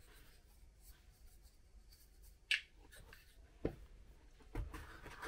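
Small folding tripod stand being handled: four light, separate clicks and taps, the sharpest about halfway through, as its parts snap and it is set down.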